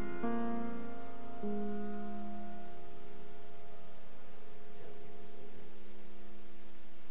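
Last chords of a piano prelude: a chord struck just after the start and another about a second and a half in, left to ring and slowly fade away over several seconds, leaving only a faint steady hum.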